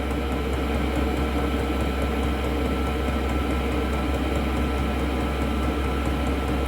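Chinese diesel air heater running steadily: its blower fan and burner give a continuous hum over a strong low drone, while hot air comes out of the outlet.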